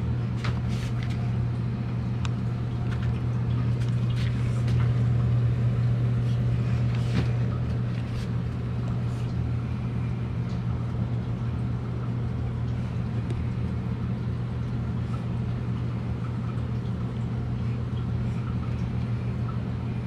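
Gas furnace's induced draft motor running on with a steady hum after the gas has shut off: the post-purge that draws fresh air through the heat exchanger before the motor stops. A few faint clicks in the first several seconds.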